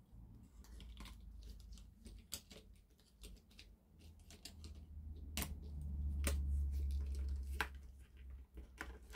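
Small plastic clicks and taps from handling an OO-gauge model locomotive chassis and its wiring, with a low rumble that swells for a few seconds about midway.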